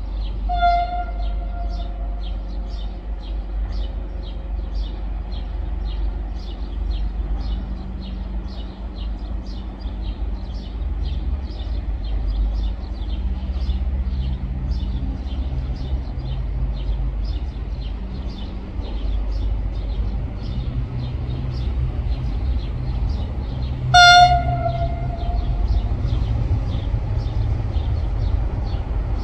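Train horn of a CFR diesel-electric locomotive sounded twice, a short blast about half a second in and another near the end, over the steady rumble of the approaching train, which grows louder.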